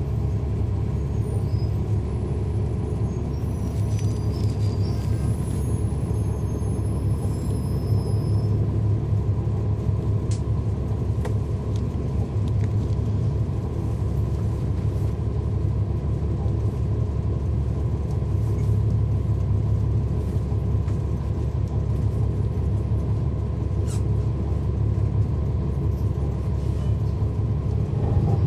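Cummins ISL9 straight-six diesel of a NABI 40-SFW transit bus heard from on board, running steadily with a low rumble and a few faint clicks.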